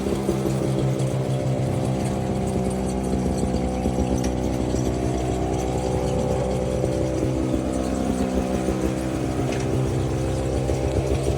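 A small engine running steadily, its pitch drifting slightly up and down.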